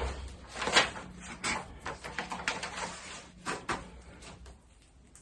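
Handling noises: a run of light knocks, clicks and rustling as things are picked up and moved about, with a faint steady hum underneath. It dies away in the last second.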